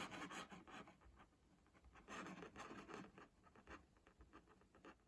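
Faint scratching and rustling handling noise, made up of quick light clicks, in two bunches: one at the start and one about two to three seconds in.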